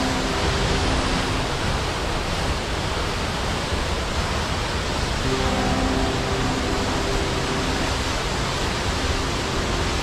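Waterfall: a heavy, steady rush of falling water that stays even throughout.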